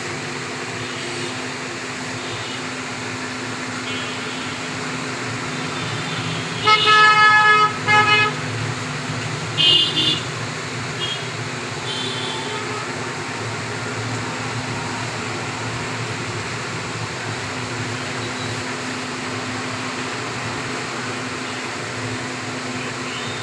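Steady street traffic noise with a vehicle horn honking: two loud blasts about seven seconds in, then shorter, higher toots around ten and twelve seconds.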